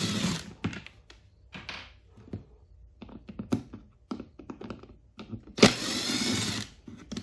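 Cordless drill/driver spinning screws out of a generator's plastic pull-start cover. One run of the motor whine stops just after the start, and another lasts about a second a little before the end, with light clicks and knocks of handling in between.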